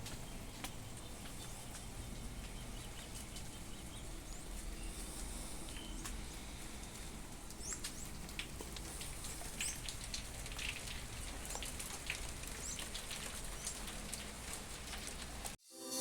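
Light rain falling, a soft, steady patter of drops, with a few faint high chirps in the middle stretch. It cuts off suddenly just before the end.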